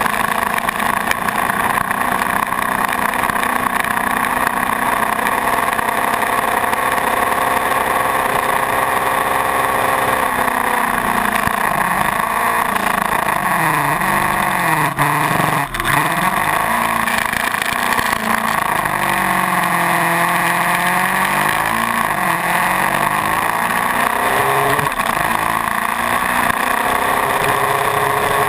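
Suzuki GS500 motorcycle's parallel-twin engine running at road speed, heard with a steady rush of wind noise. Its pitch falls and rises several times through the middle stretch.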